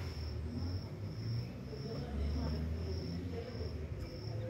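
Cricket chirping steadily, a high note repeated about twice a second, over a low rumble.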